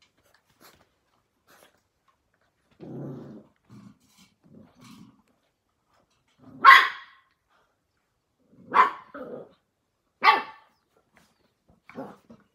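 Australian Cattle Dog (blue heeler) puppies in rough play: a low growl about three seconds in and a few soft grumbles, then three sharp play barks about two seconds apart and a softer bark near the end.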